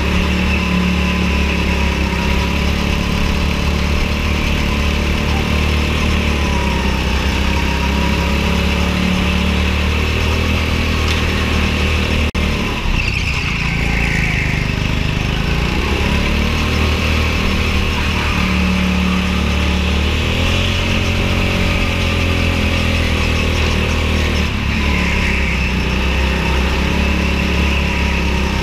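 Go-kart engine running hard with a steady drone. Its pitch drops and climbs back twice, about halfway through and near the end, as the kart slows and accelerates again.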